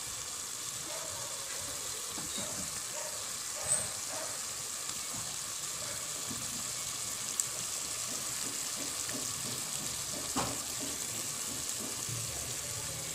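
Pork belly frying with a steady sizzle in a stainless steel pot, in its own juices and vinegar, with three brief pops.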